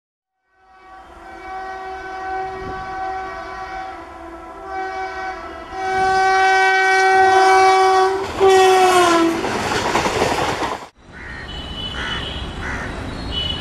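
WAP-4 electric locomotive's air horn sounding as it approaches at speed: a long blast, a short one, then another long blast whose pitch drops as the locomotive passes. The loud rush and rattle of the passing train follows and cuts off abruptly about eleven seconds in, leaving a quieter rumble.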